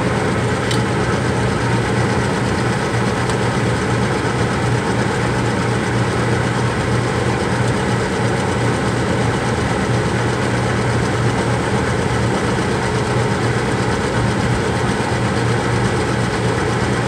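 A steady machine hum with a low, even drone, with a faint tick about a second in.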